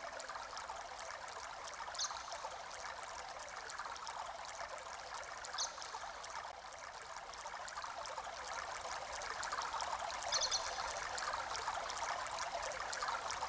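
Running water from a small stream, trickling steadily, with a few brief high chirps.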